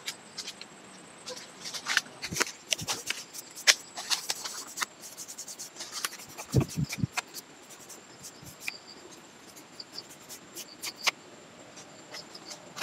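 Irregular clicks, scratches and rustles of hands and a small tool working at a lychee tree's bark and branches, with a few dull thumps around the middle.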